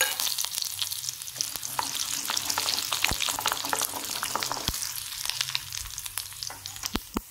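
Tadka of mustard seeds, cumin seeds and curry leaves sizzling and crackling in hot oil in a kadhai while a wooden spatula stirs them. A few sharper pops stand out from the crackle.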